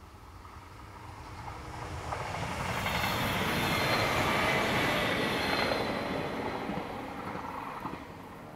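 Thurbo Stadler GTW electric railcar passing: the rolling noise of its wheels on the rails swells to a peak a few seconds in, then fades away.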